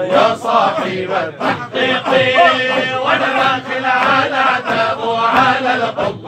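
Male voices chanting an Arabic devotional nasheed (Sufi madih), the melody running on without a break.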